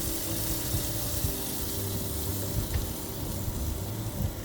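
Chicken roasting in a fan-forced oven: a steady sizzling hiss over a low fan hum.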